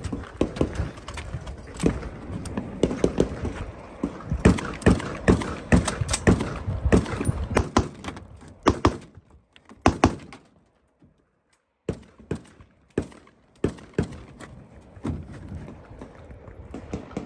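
A string of gunshots fired in quick groups with short pauses between them, as a shooter works through a stage of steel targets. The sound drops out briefly about ten seconds in.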